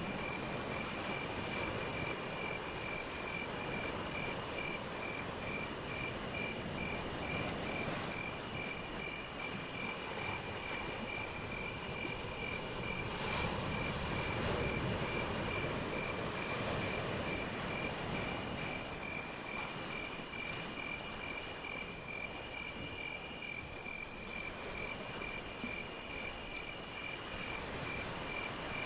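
Crickets and other insects calling: a steady pulsing chirp several times a second and a very high trill that comes in bursts about a second and a half long. Underneath is a steady low background rumble.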